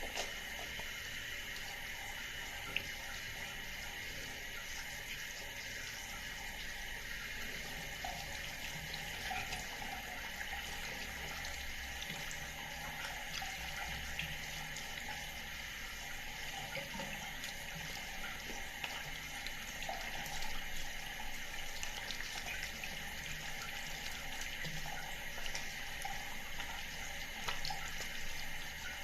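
Water running from a bathroom sink tap in a steady stream into the basin.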